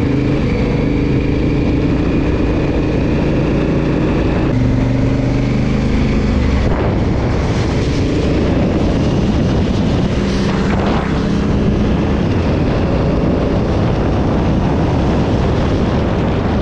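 Honda CRF1000L Africa Twin's parallel-twin engine running under way, with wind and road noise, its note changing about four and a half seconds in.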